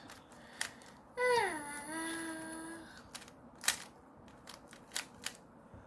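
A Rubik's cube's layers being turned, giving short scattered clicks. About a second in, a voice gives one long wail that falls in pitch and then holds, the loudest sound here.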